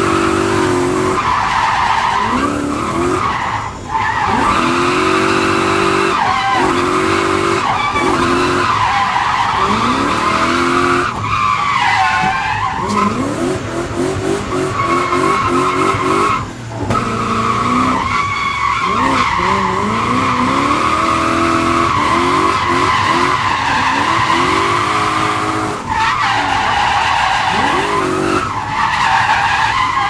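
V8-swapped BMW E28 drifting: the V8 revs rise and fall again and again under hard throttle, over a continuous squeal of sliding rear tyres. The sound drops off briefly a few times when the throttle is lifted.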